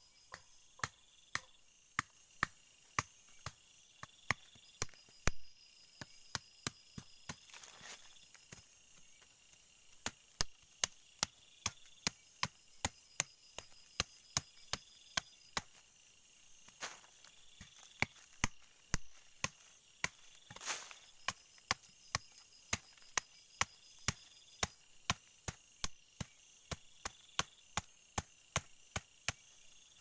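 Machete blade chopping into a green stick held against the ground: a steady run of sharp chops, about two a second, with a few short pauses, as the stick is cut and shaped.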